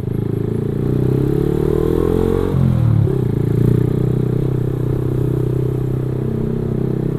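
Motorcycle engine accelerating away from a standstill, its pitch rising for about two and a half seconds, then dropping sharply before it settles into a steady run.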